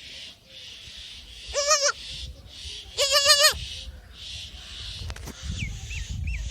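Newborn goat kid bleating twice: a short wavering bleat about a second and a half in, then a longer one about three seconds in. Faint bird chirping runs behind.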